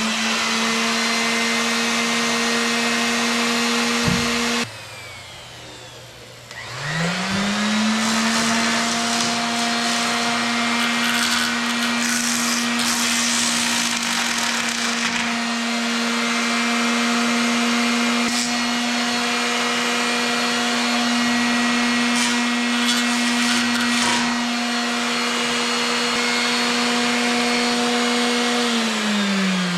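Power sander running at a steady high pitch. It cuts off suddenly about four and a half seconds in, spins back up about two seconds later, runs steadily, and winds down near the end.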